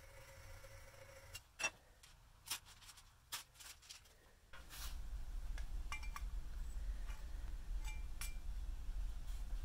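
A few sharp metallic clicks and taps from a steel slick blade being handled. About halfway in, a low hum comes in underneath, with a few more light clicks.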